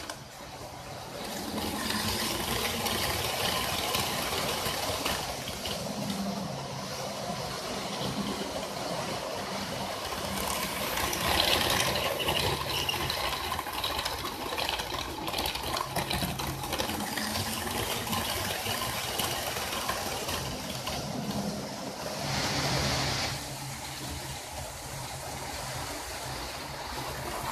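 Model trains running on a layout: a steady rattle of wheels on the rails with a low motor hum, swelling briefly twice, about 11 and 23 seconds in.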